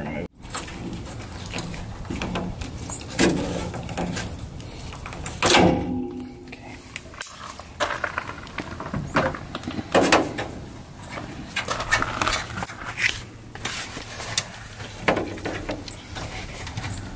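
Intermittent metallic clicks, knocks and scrapes from hand work on a bus's metal baggage-bay door: a gas strut and hand tools being handled and the door latch being worked.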